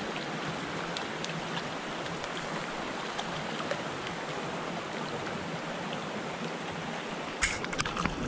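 Small rocky brook running steadily over stones, with a short burst of splashing in the water near the end as a hooked brook trout is brought to hand.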